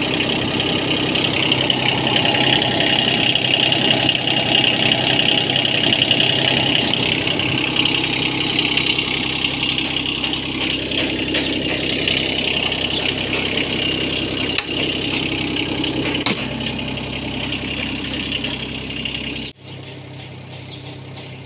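Lovol FR18E2-U mini excavator's diesel engine idling steadily. A couple of light clicks come in the middle. Near the end the engine sound cuts off abruptly and a much quieter sound follows.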